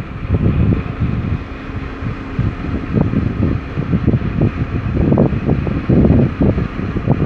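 Wind buffeting the microphone in uneven gusts, over a steady faint mechanical hum.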